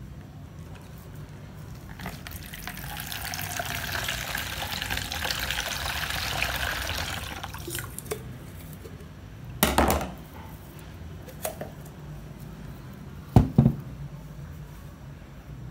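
Coconut water draining from a freshly cracked coconut and splashing into a bowl for about six seconds, starting about two seconds in. Later come a single knock and then a sharp double knock.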